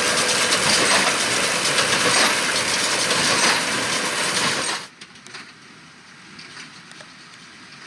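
Fendt 724 Vario tractor and Massey Ferguson 2170 large square baler working straw, a loud, dense mechanical noise that drops away suddenly about five seconds in to a much quieter running with faint clicks.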